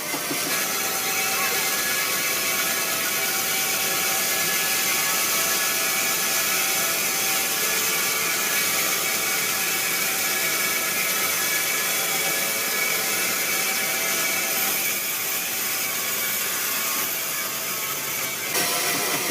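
Sawmill machinery running steadily, a continuous mechanical noise with several whining tones held throughout, shifting slightly near the end.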